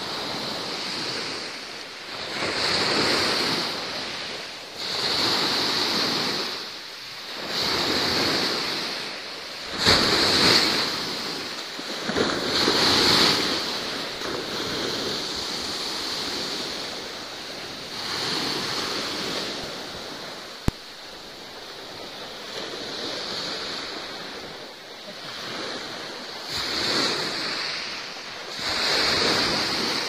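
Sea waves washing and surging, the hiss swelling and fading every two to four seconds. A single sharp click sounds a little past two-thirds of the way through.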